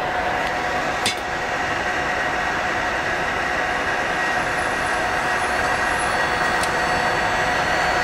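Compaq ProLiant DL360 G2 1U server running at full power, its cooling fans making a steady whirring noise with several constant whining tones over it. A single sharp click about a second in.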